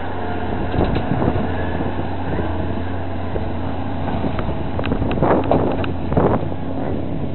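Truck engine running steadily, with wind buffeting the microphone. There are a couple of short louder bursts of sound about five and six seconds in.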